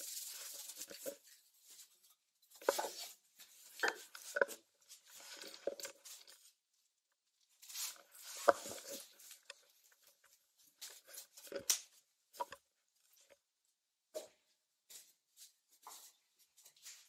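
Irregular scuffing and crunching of a person climbing and crawling through a narrow concrete passage over grit and broken brick, with clothing brushing the walls and a few sharp clicks.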